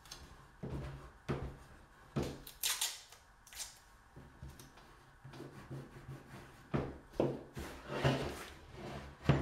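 Masking tape pulled off its roll and rubbed down along the seam of two hardwood boards, in short irregular rasping strokes. Near the end the board is lifted, flipped and set down on the table with a knock.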